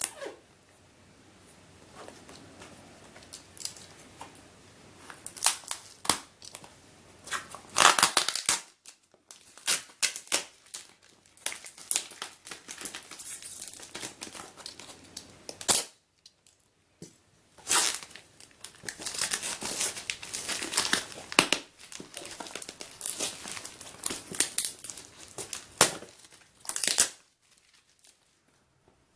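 Packing tape and packaging being torn and crinkled by hand while opening a well-taped parcel, in irregular rasping pulls with short pauses between them.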